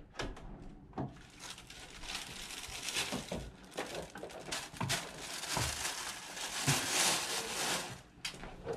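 Plastic shopping bag crinkling and rustling as it is carried in and set down, busiest in the second half. Along with it come a few knocks and clicks, among them the front door being opened about a second in, and footsteps on the entryway floor.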